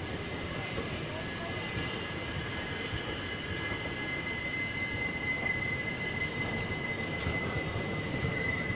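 Indian Railways passenger coaches rolling past close by: a continuous rumble of wheels on rail. A steady high-pitched wheel squeal rings over it and grows stronger near the end.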